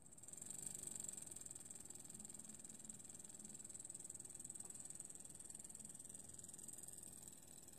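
Faint, steady high-pitched hiss of a miniature brass vertical steam engine running on low-pressure compressed air (about 3 to 9 psi), growing a little louder just after the start.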